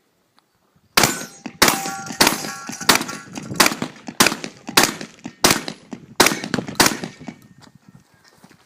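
About ten shotgun shots fired in quick succession, roughly one every 0.6 seconds, with a metallic ring from steel targets after several of them.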